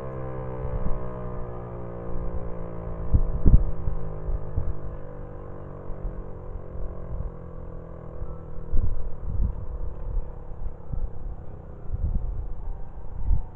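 Federal Signal 508 rotating outdoor warning siren winding down at the end of a full-alert test, its tone sliding slowly lower and fading out over the first several seconds. Wind buffets the microphone in gusts throughout.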